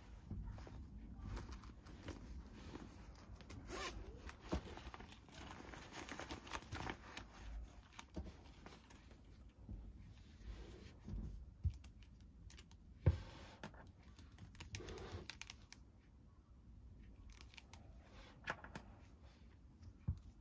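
Faint rustling and handling noises with scattered light clicks and knocks, the loudest knock about 13 seconds in.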